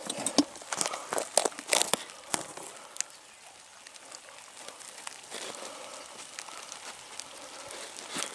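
Crackling rustles close to the microphone, a quick run of sharp ticks over the first two seconds, then quieter with only faint scattered rustles.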